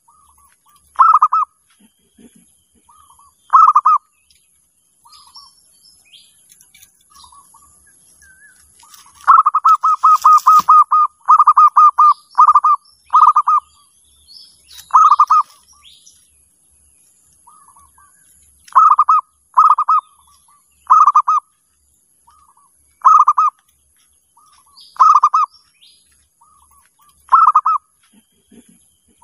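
Zebra dove (perkutut) cooing: short bursts of quick staccato coos repeated every second or two, with one longer run of coos from about nine to thirteen seconds in. Fainter high chirps of small birds come in between the coos.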